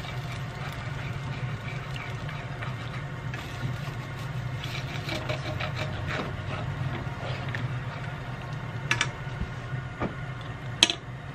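Wooden chopsticks stirring scrambled egg in a nonstick frying pan as it cooks, with a few light clicks of the chopsticks against the pan, the sharpest near the end. A steady low hum runs underneath.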